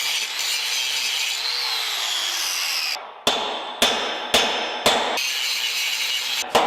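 Metalworking on an excavator's worn bucket-pivot bore: about three seconds of harsh scraping and grinding, then sharp hammer-like metal strikes about twice a second, each ringing off.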